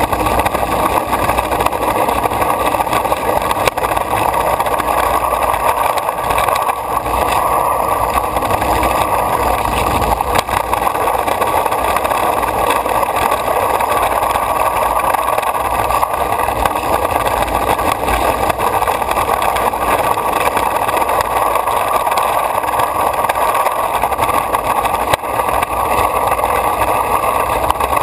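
Longboard wheels rolling fast over a concrete parking-garage floor: a loud, steady rumble that does not let up.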